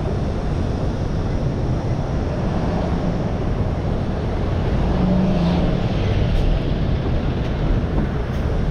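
Steady low rumble of city street traffic, vehicle engines and tyres at a busy intersection, with one vehicle's engine hum standing out briefly about five seconds in.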